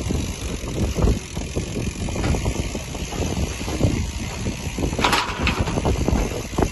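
Wind buffeting a phone microphone on a boat at sea: an uneven low rumble with gusty pulses, and one short hiss about five seconds in.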